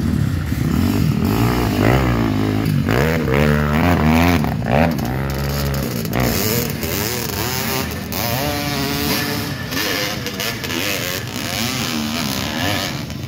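Dirt bike engines revving, their pitch rising and falling again and again as the off-road motorcycles ride past. The revving is loudest about four seconds in.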